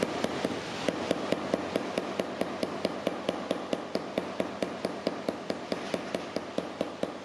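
Flat-faced smoothing hammer tapping rapidly and evenly on a 3D-printed PLA mold clamped over sheet metal on an anvil, about five to six light taps a second, driving a logo relief into the metal through the mold.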